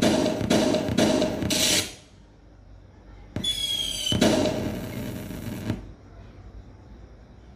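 Firework sound effects from an LED electric-firework light show: a pulsing beat, about two pulses a second, stops about two seconds in. About three and a half seconds in comes a sudden burst with falling whistles and a hiss that fades away over about two seconds.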